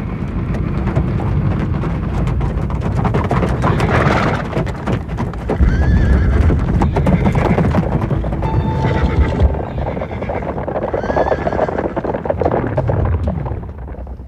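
Horses galloping, with hoofbeats and several whinnies rising and falling over the running.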